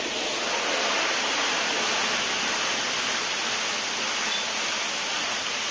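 Tapioca slices deep-frying in a kadai of hot oil: a steady, even sizzle.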